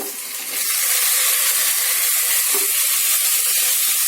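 Chopped tomatoes added to hot oil and sautéed onions, sizzling hard; the sizzle jumps up about half a second in and then holds steady.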